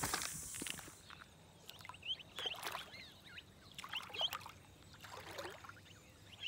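Black swans on a calm lake giving short, high, whistling calls several times, with quiet in between. The calls follow an outdoor hiss that cuts off about a second in.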